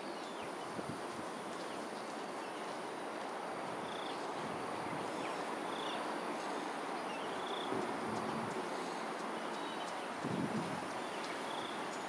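Steady outdoor background hiss with a few short, high chirps from a small animal, spaced a second or more apart.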